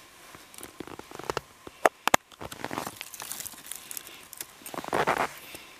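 Dry split wood sticks and shavings rustling and crackling as they are handled and arranged around a cotton-ball tinder, with a few sharp clicks about two seconds in and a louder burst of rustling near the end.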